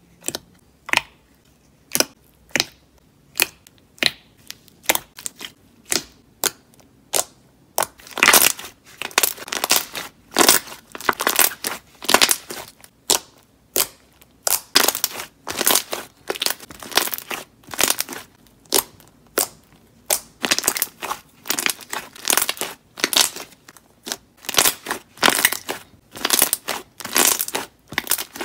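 Fingers poking and squeezing thick white slime, giving sharp crackling pops at a steady two or so a second. About eight seconds in they turn into louder, longer runs of crackling as the slime is pressed and stretched.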